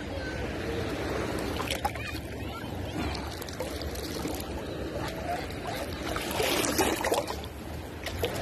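Water splashing and sloshing in shallow surf as a long-handled metal sand scoop is dug in, lifted and drained, with wading through the water; the splashing grows louder about six and a half seconds in.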